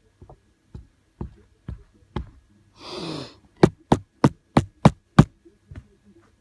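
Knocking by hand to be heard and get help: a few light knocks, about two a second, then a breathy sigh. Then a run of six loud knocks in quick succession, about three a second, tailing off into two softer ones.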